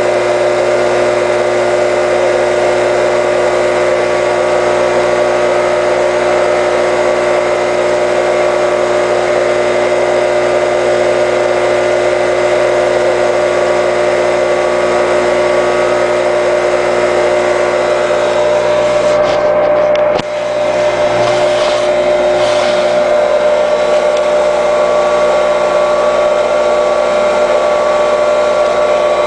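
Delta/Rockwell 34-345 table saw motor, a 1.5–2 HP capacitor-start single-phase motor wired for 115 volts, running free with no load at about 3450 RPM: a steady hum and whine with a constant pitch. The level dips briefly about twenty seconds in, then the motor runs on steadily.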